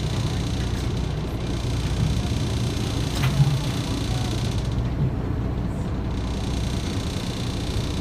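Steady low engine rumble with wind and water noise, as from a small boat underway on open water, with a single sharp click a little after three seconds in.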